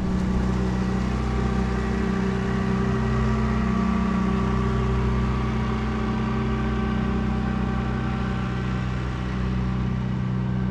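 A boat engine running steadily with a low, even drone.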